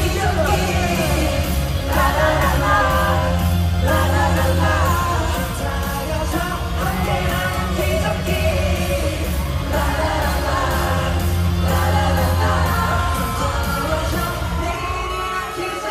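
Live pop song: a boy band's voices singing over a loud amplified backing track with a heavy bass line, heard through a concert sound system.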